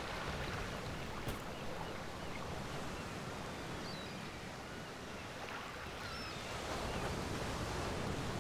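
Harbour ambience: an even wash of water noise with a few faint, short high chirps around the middle.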